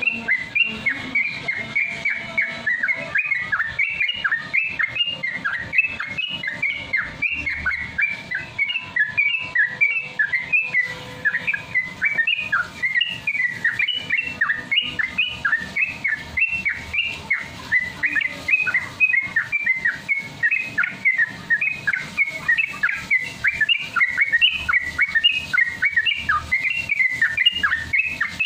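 Yellow-vented bulbul (trucukan) song: an unbroken, rapid string of short, bubbling whistled chirps, about three or four a second, the fast continuous 'ropel' style of singing.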